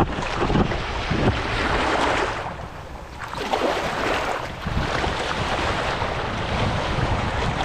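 Small waves washing in and drawing back on a sandy beach, swelling and ebbing every second or two, with wind rumbling on the microphone.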